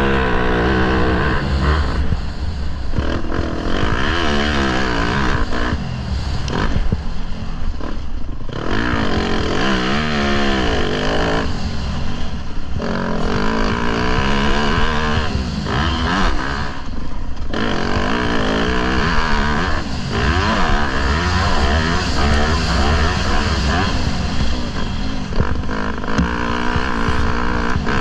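Motocross bike engine revving up and falling back again and again as the rider opens and closes the throttle around a dirt track, heard close up from a camera on the bike. There are brief drops in engine sound about 8, 12 and 17 seconds in.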